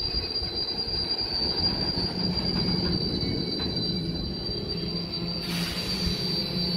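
Freight train wagons rolling past close by: wheels rumbling on the rails with a steady high-pitched wheel squeal, and a short hiss about five and a half seconds in.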